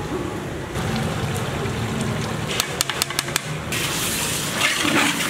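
A long metal ladle stirring frying vegetables in a large metal pot, with sizzling throughout. A quick run of sharp metal clinks comes about three seconds in, and then the sizzle grows louder near the end.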